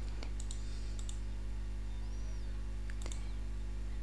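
Computer mouse buttons clicking a few times, some in quick pairs about a second apart, over a steady low hum.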